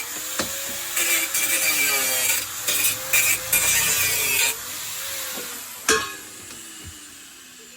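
A hand power tool working in bursts, its motor tone wavering as the load changes. A sharp knock comes about six seconds in, and then the sound dies away.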